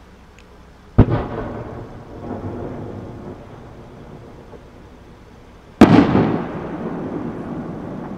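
Two aerial firework shells bursting with loud booms, about a second in and again almost five seconds later. Each boom is followed by a long echoing tail.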